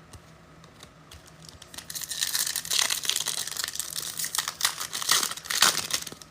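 A trading-card pack wrapper being torn open and crinkled in the hands: a dense crackling that starts about two seconds in and stops shortly before the end.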